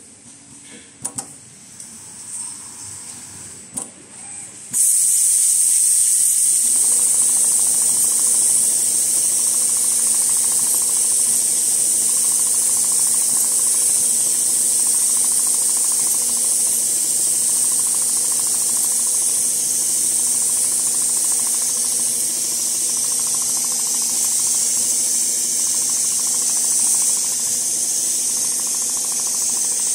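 Richpeace CNC leather sewing machine at work: light clicks at first, then a loud steady high hiss starts abruptly about five seconds in, joined a couple of seconds later by the steady hum of the machine running.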